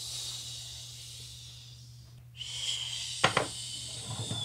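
A child making a breathy, hissing jet take-off whoosh with her mouth while flying a toy airplane: about two seconds of hiss, a short break, then more hiss with a steady high whistle-like tone that falls away at the end. One sharp knock of the plastic toy about three seconds in.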